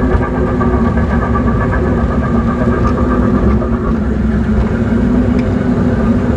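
Small amusement-park ride train running steadily along its narrow track, its drive making a noisy, even drone with a few faint clicks.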